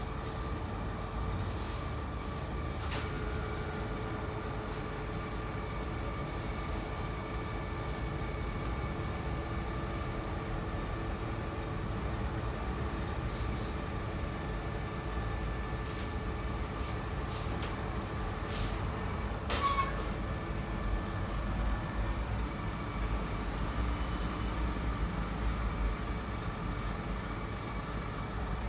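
Steady low rumble and faint electrical hum of kitchen equipment, with one short, sharp ringing sound about two-thirds of the way through.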